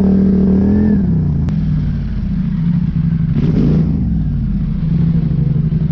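Polaris Scrambler 850 ATV's parallel-twin engine running under way. Its revs drop about a second in, rise briefly with a burst of noise past the middle, then settle to a steady lower pitch.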